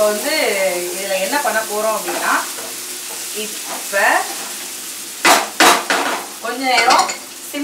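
Mutton with onion and tomato sizzling in oil in a frying pan while a ladle stirs and scrapes through it, with two sharp knocks of the ladle against the pan about five and a half seconds in.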